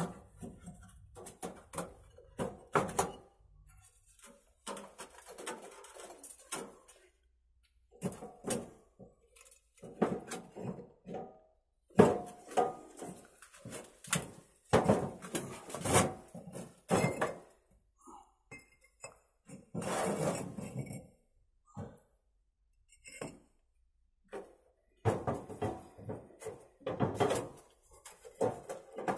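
Irregular knocks, thunks and clinks in a small room, as of hard objects being handled and set down, coming in clusters with short quiet gaps between.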